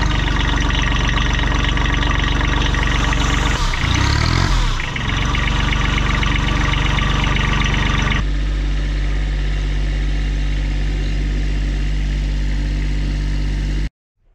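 Kubota compact tractor engine running just after being started, its revs shifting about four seconds in and settling lower and steadier after about eight seconds, then cutting off abruptly near the end.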